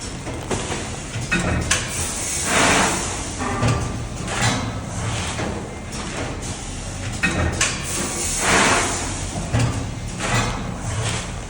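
Powder detergent packaging machine running through its cycle: a steady low hum with repeated clicks and knocks, and a louder hissing burst about every six seconds.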